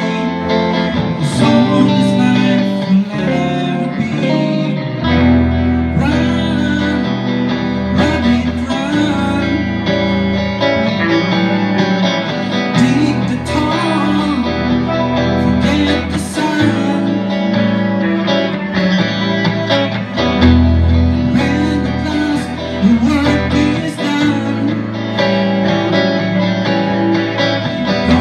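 Guitar-based music with singing, played at a steady beat.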